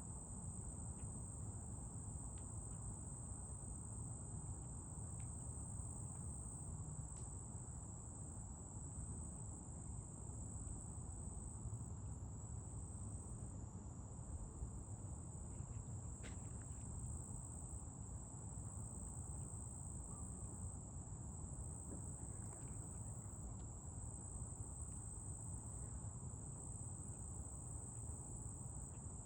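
Crickets trilling steadily in one continuous high-pitched band, over a low background hum of outdoor ambience. A brief faint chirp comes about halfway through.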